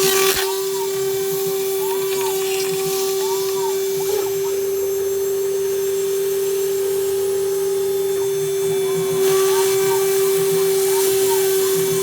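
CNC router spindle running steadily at 24,000 rpm with a 1/4-inch Onsrud 63-620 end mill cutting polycarbonate. The cutting noise drops away about half a second in and picks up again about nine seconds in, while the spindle tone holds steady.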